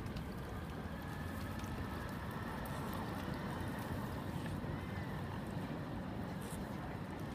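Steady low rumble of river boats and city traffic, with no distinct events.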